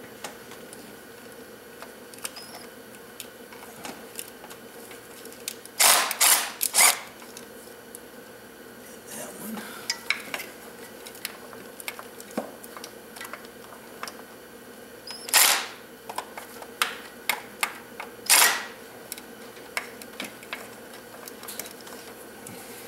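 Hand ratchet with a swivel socket working bolts loose: short bursts of ratchet clicking and clinks of metal tools, three close together about six seconds in and two more later, over a steady faint hum.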